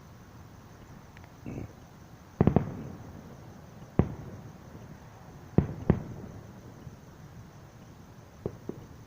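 Firework shells bursting in a pyrotechnic display, each boom with a short echoing tail. A soft thump comes first, then a rapid cluster of booms, a single boom, a close pair, and two lighter pops near the end.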